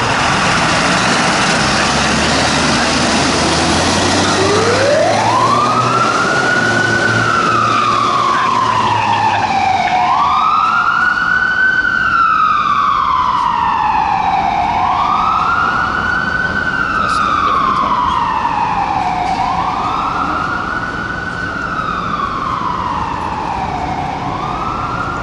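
The engine of a Freightliner FL50 rescue/medical truck runs as it pulls away. About four seconds in its siren starts with a long rise, then wails up and down about every four seconds, fading slightly near the end.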